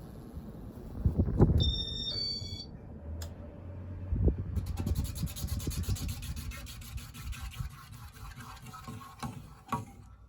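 1995 Casablanca Panama ceiling fan motor running with a fast, even ticking buzz. The sound is of unknown cause, which the owner takes for a bad motor winding. Heavy handling thumps and a short run of high beeps come early, and it stops with a click near the end.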